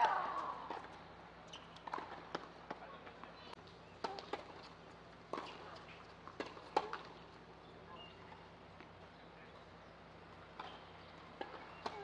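Tennis rally on a hard court: rackets striking the ball and the ball bouncing, a string of sharp pops a second or two apart, the loudest right at the start with a short vocal sound after it.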